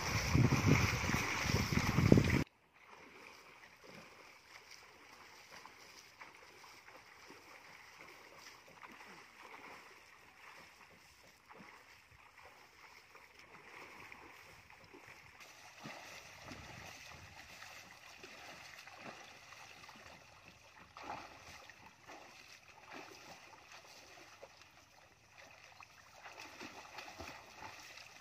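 Pool water splashing loudly as swimmers throw and churn it, stopping abruptly about two and a half seconds in. After that, only faint splashing and lapping of water in the pool.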